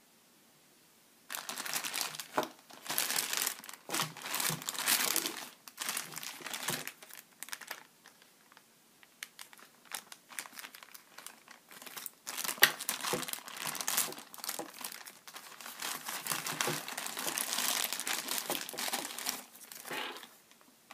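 Thin clear plastic packaging bags crinkling and crackling as they are handled and pulled open to take a figure out. The crinkling comes in two long stretches, with only scattered crackles in a lull about halfway through.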